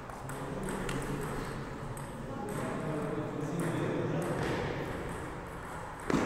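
Table tennis ball clicking off bats and the table in a doubles rally, a few sharp clicks in the first second or so, with a louder knock near the end.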